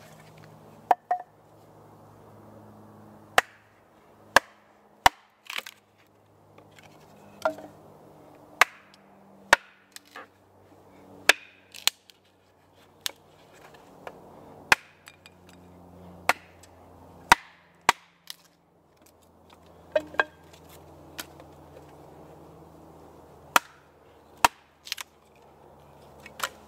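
Hatchet splitting kindling on a wooden chopping block: about twenty sharp chops at irregular intervals, a few in quick pairs, with pauses between.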